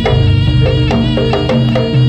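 Live Javanese jaranan music: a reed pipe (slompret) holding a melody over kendang drums and struck gamelan percussion, with a steady beat of about four to five strikes a second.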